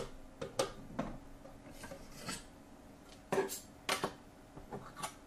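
Irregular light clicks and short scrapes of a glass microscope slide and the plastic slide holder of a desktop slide scanner being handled while a new slide is loaded.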